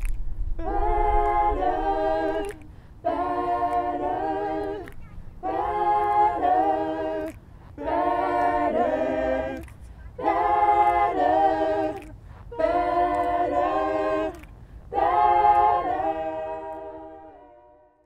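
A cappella group of voices singing a gospel song in harmony, in seven short phrases with brief breaks between them, fading out near the end.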